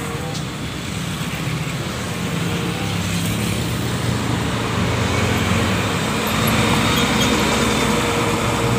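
Road traffic: motorcycles and trucks passing along a busy road. A heavy multi-axle truck's engine grows louder as it passes close near the end.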